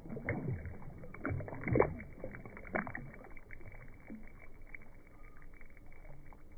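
Largemouth bass splashing in shallow pond water as it kicks away after release: a few sharp splashes in the first three seconds, the loudest about two seconds in, then quieter water movement.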